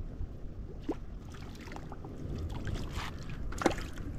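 River water lapping against a stone bank with a steady low rumble, broken by scattered small clicks and one sharper click about three and a half seconds in.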